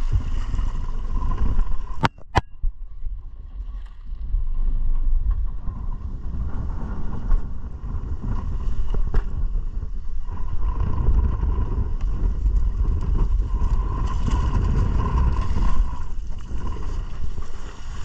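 Wind rumbling on the microphone over the steady noise of a small open fishing boat at sea, with a faint steady hum. Two sharp clicks sound about two seconds in.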